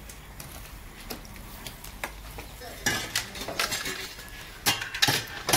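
Metal kebab skewers clinking against each other as a cook handles them over a charcoal grill. The clinks come in a loose run starting about three seconds in, and are loudest and quickest near the end.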